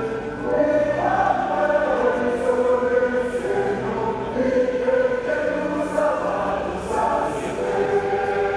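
A choir singing, with voices holding long notes that move to a new pitch about every second.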